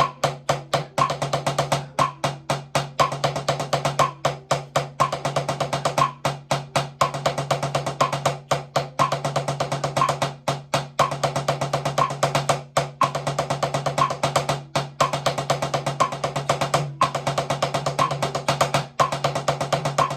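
Drumsticks playing fast single-stroke patterns in rapid groups with short breaks between them. A regular higher click, about once a second, keeps time.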